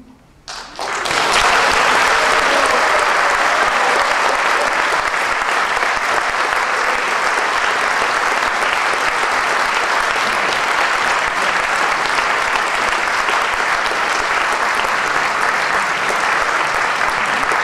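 Audience applause breaking out about a second in and going on steadily.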